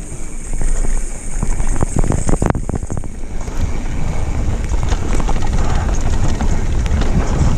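Mountain bike descending a rocky dirt trail at speed: wind rushing over the microphone and tyre noise on the dirt, with a cluster of sharp knocks and rattles from the bike about two seconds in.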